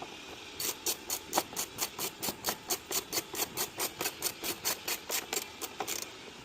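Ratchet wrench tightening a bolt: a quick steady run of sharp clicks, about five a second, that stops shortly before the end.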